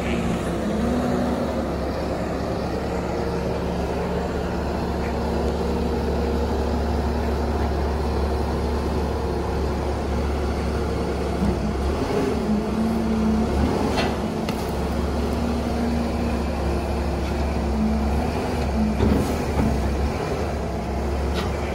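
Bobcat compact track loader's diesel engine running steadily, with a hum that comes and goes as the loader arms raise and lower the Vail brush cutter.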